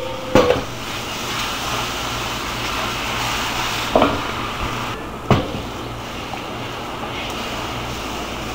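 Brown gravy in a cast-iron skillet hissing steadily as water from a kettle is poured onto the hot browned flour and grease, with a few sharp knocks on the pan just after the start, about four seconds in and a second later.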